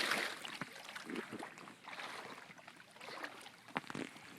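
Water sloshing and splashing around a small boat being pushed through shallow flood water, with uneven swells and a sharp knock near the end.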